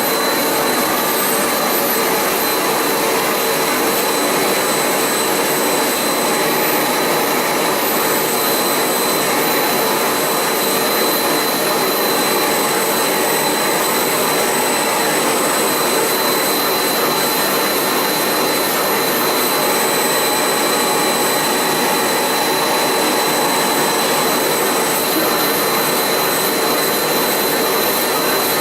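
Vacuum cleaner running steadily: a constant rushing hiss with a thin, steady high whine over it, unbroken throughout.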